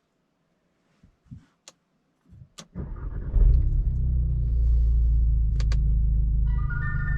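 Audi S3's turbocharged 2.0-litre four-cylinder, APR stage 2 tuned with a Remus exhaust, cranked and started about two and a half seconds in after a few clicks in the cabin. It flares briefly on start, then settles into a steady idle. An electronic chime of a few tones sounds near the end.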